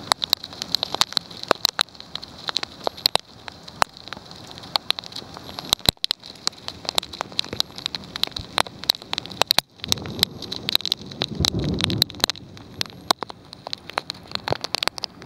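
Heavy rain and hail pelting down: a steady hiss with dense, irregular sharp taps of hits on nearby surfaces. A low rumble swells about ten seconds in and fades two seconds later.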